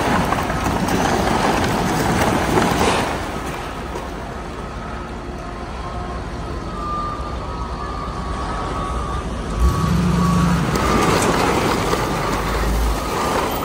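A raised dump-truck bed unloads roofing debris, broken shingles and paper sliding and crashing onto a concrete floor over the truck's running engine. The rush of falling debris is loudest in the first few seconds. It comes again after a sharp knock about ten seconds in.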